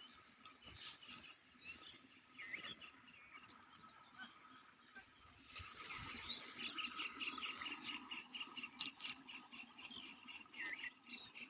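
Wild birds chirping and calling, short rising and falling notes at first, then a quick run of rapidly repeated chirps from about halfway through, over a faint steady high tone.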